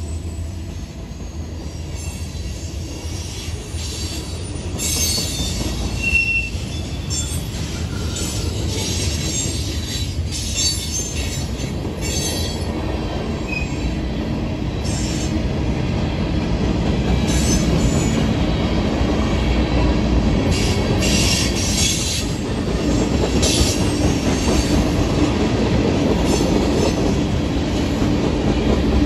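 Freight train of covered hopper and tank cars rolling past, a steady rumble of wheels on rail that grows louder in the second half. Short high screeches from the wheels cut in every few seconds.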